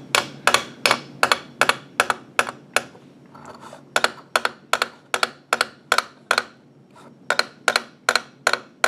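Light, quick taps of a rivet hammer's flat face on the end of a clamped wire, about three taps a second with a pause of about a second partway through, spreading the wire end into a rivet head.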